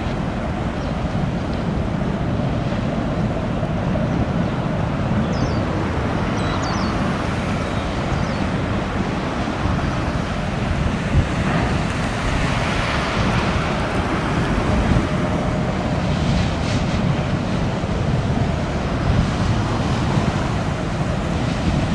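Wind rumbling on the microphone over the rushing of sea water and a fast boat's wake. The sound stays steady, with no clear engine note.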